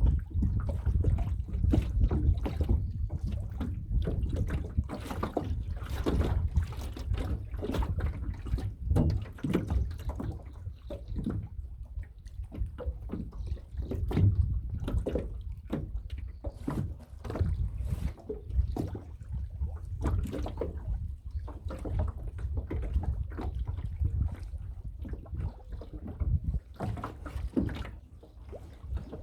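Water splashing and sloshing irregularly around a small boat, over a steady low rumble of wind on the microphone.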